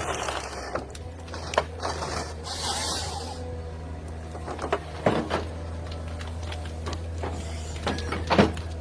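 Forestry harvester working: its engine runs with a steady low hum while scattered sharp knocks and cracks come from the machine and the wood it handles, with a brief hissing swell early on.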